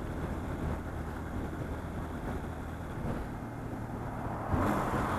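Motorcycle engine running at a steady highway cruise under wind and road noise, heard from a camera on the bike; a brief louder whoosh near the end.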